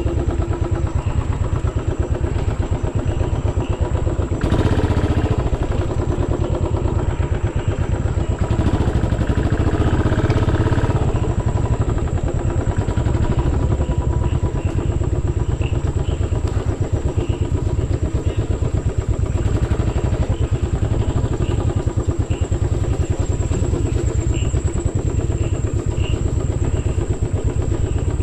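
Royal Enfield motorcycle engine running steadily on the move, its exhaust giving a fast, even pulsing thump.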